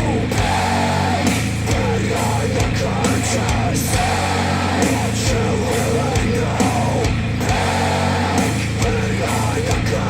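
Heavy rock music with distorted guitars and a steady drum beat, played back through Wharfedale Denton 80th bookshelf speakers driven by a Cambridge AXR100 integrated amplifier.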